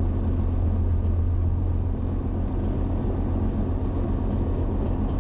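Diamond Dimona motorglider's propeller engine running steadily at low taxi power, a constant low drone.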